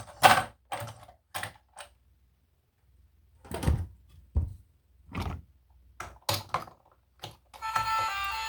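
Objects being handled and set down: about ten separate knocks and thunks, with a quiet gap of a second or so in the middle and the strongest, deepest thuds a little under halfway through.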